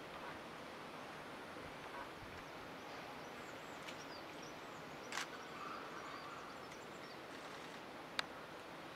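Quiet forest ambience: a steady hiss with faint, high chirps of small birds here and there, and two sharp clicks, about five seconds in and near the end.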